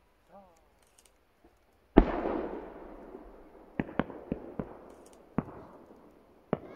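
Aerial firework shells going off: one loud report about two seconds in that echoes away slowly, followed by a scattered series of sharper cracks.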